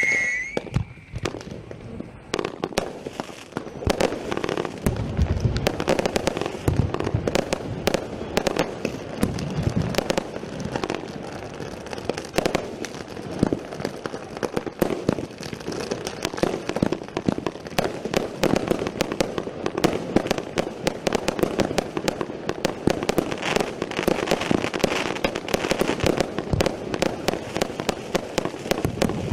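Hestia Royal Time 146-shot firework cake firing: a dense, continuous run of sharp cracks and crackling pops from the bursting shells.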